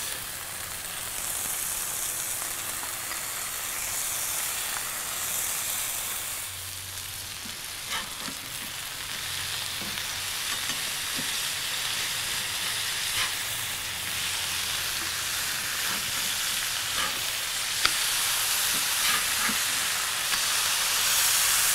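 Thin smashed beef patties sizzling steadily on a hot griddle over charcoal. A few sharp clicks sound through the sizzle.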